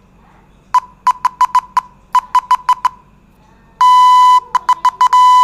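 Morse code tone from a phone's Morse code translator app, beeping as code is keyed in: a run of about a dozen short dots, then after a pause louder beeps with long dashes among the short dots.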